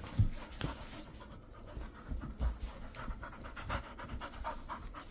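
Golden retriever puppy panting while playing with a toy, with irregular knocks and rustles, the loudest a knock about a quarter of a second in.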